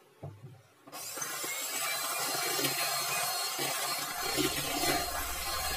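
Five-speed electric hand mixer switched on about a second in and running in cake batter, its motor and beaters making a steady whirring noise. A single knock comes just before it starts.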